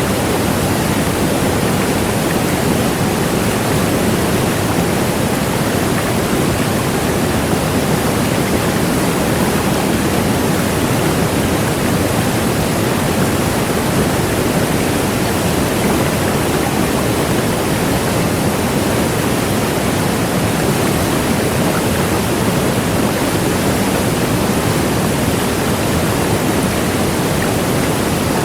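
Large waterfall: a steady, loud rush of falling water, a deep, even roar with no breaks.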